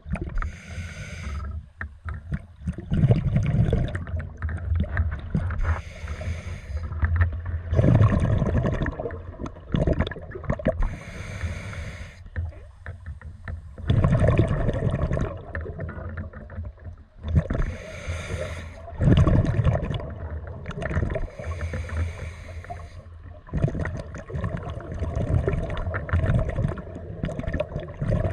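Scuba diver breathing through a regulator underwater: a short hissing inhale alternates with a louder, low bubbling exhale, about one breath every five seconds.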